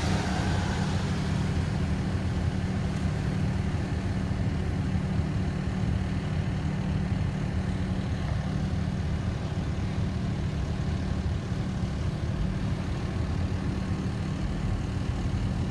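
Vehicle engine idling: a steady, even low hum.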